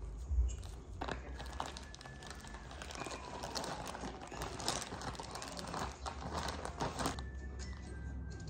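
Plastic zip-lock freezer bag crinkling and rustling as it is handled and filled, with many small crackles and clicks that thin out near the end.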